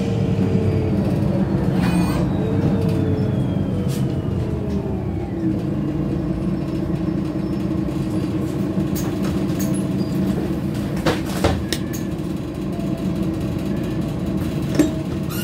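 City bus, heard from inside, slowing to a halt with a whine that falls in pitch over the first few seconds. Its engine then idles steadily while it stands at the stop, with a few short clicks later on.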